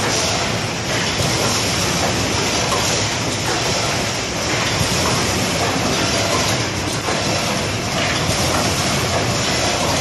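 Fully automatic cable crimping machine line running: a steady, dense machine noise with repeated clicks from its presses and conveyor.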